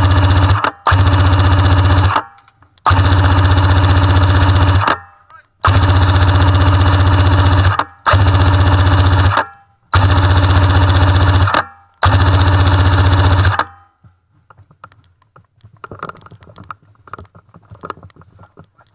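Airsoft M60 support gun firing full-auto in about seven long bursts of one to two seconds each, with short pauses between. The firing stops about fourteen seconds in, leaving only faint rustling.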